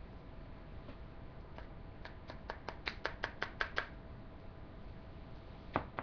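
A quick run of about ten light, sharp taps, about five a second, followed by a single tap near the end.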